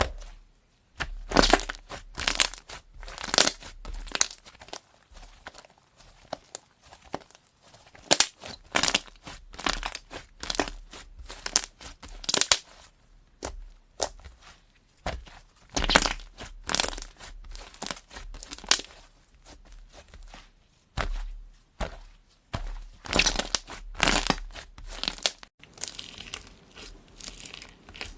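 Slime being squeezed and pressed by hand, giving clusters of crisp crackling, crunching and popping a second or two long with short pauses between them.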